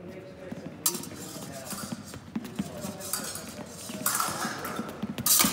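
Épée blades clicking and sliding against each other, mixed with fencers' footsteps on the sports hall floor. The loudest blade clash comes near the end.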